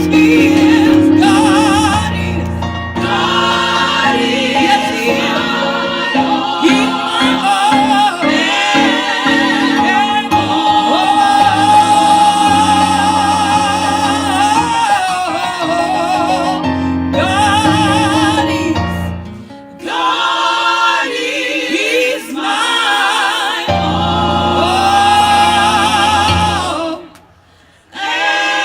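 Gospel choir of men's and women's voices singing with vibrato over a steady band accompaniment; the music breaks off briefly near the end.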